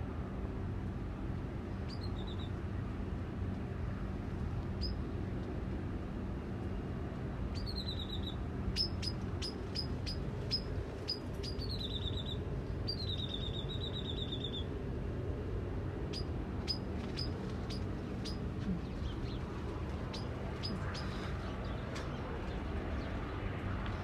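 Birds chirping: short, high calls, some sliding down into a brief trill, mixed with sharp ticks that come about three a second in the middle and thin out towards the end. A steady low rumble runs underneath.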